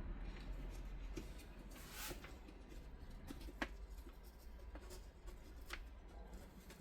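Stiff X-Pac laminated fabric being handled: a soft crinkling rustle about two seconds in and a few small, sharp clicks.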